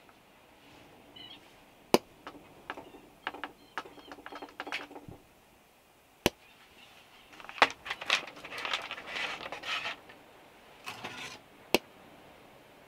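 A paper-and-foil sachet of instant cappuccino powder crinkling as it is handled, shaken and emptied into a small steel cup, in two stretches of rustling. A few single sharp knocks on the wooden tabletop come in between.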